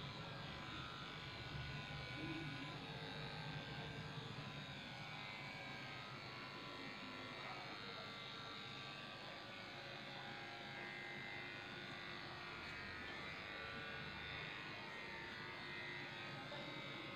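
Electric dog grooming clippers running steadily, shaving a dog's coat.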